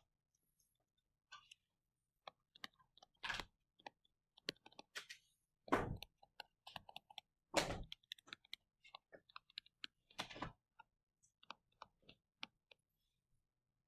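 Faint, irregular tapping and scratching of a stylus on a touchscreen as handwriting is written, with a few louder, longer strokes about three, six, eight and ten seconds in.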